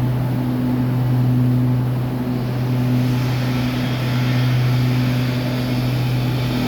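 Homemade welding machine humming steadily, with a hissing crackle joining in about two seconds in.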